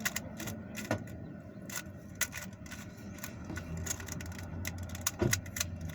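Rubik's Cube being turned quickly by hand: irregular rapid clicks and clacks of the plastic layers twisting, over a low steady hum.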